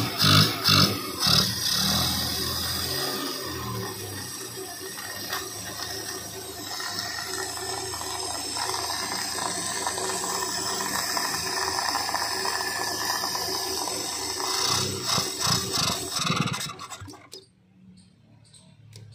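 Maruti 800's three-cylinder carburetted engine running with the air cleaner off, its throttle blipped a few times at the start, then running steadily with a loud rush of intake noise. There are more blips about fifteen seconds in, and the sound cuts off about two seconds later. The engine is being checked for a carburettor problem.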